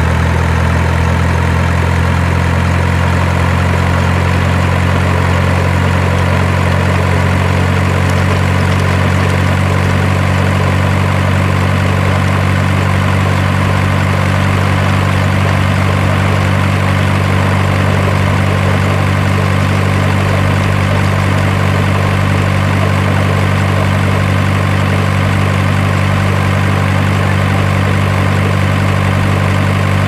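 Heavy truck engine idling steadily, an even low drone that never changes speed.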